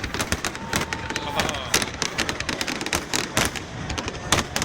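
Fireworks display: many sharp bangs and crackles going off irregularly, several a second, with people's voices underneath.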